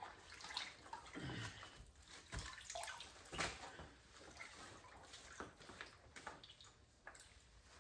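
Faint water splashing and dripping in short, irregular bursts.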